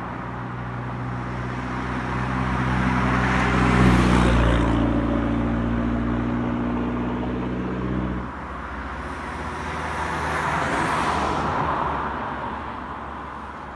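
Vehicles driving up a hill road. An engine drone passes, loudest about four seconds in, and stops around eight seconds. A second, noisier swell of vehicle sound rises around eleven seconds and fades toward the end.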